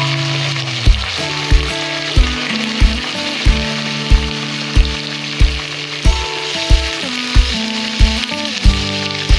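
Raw chicken pieces sizzling as they fry in hot oil in a wok. Background music with a steady beat plays over it.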